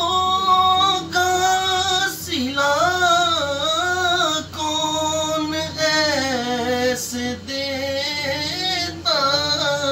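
A man singing an Urdu naat without instruments, holding long drawn-out notes with a wavering vibrato and ornamented slides between pitches.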